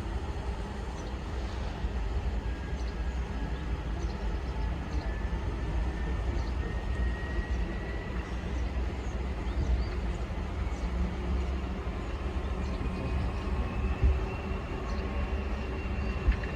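Diesel locomotive running hard with a deep steady rumble, and a high whine that rises slowly in pitch throughout.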